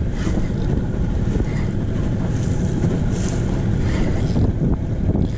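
Wind buffeting the microphone over water rushing along the hull of a small open boat under way, with a couple of brief hissing splashes of spray near the middle.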